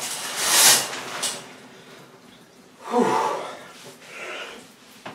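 A person's loud breathy exhales in the first second, then a short sigh-like voiced sound falling in pitch about three seconds in.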